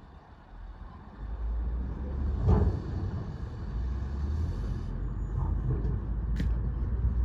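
Bulldozer's diesel engine running under load, a low rumble that rises about a second in, with a single loud clank about two and a half seconds in.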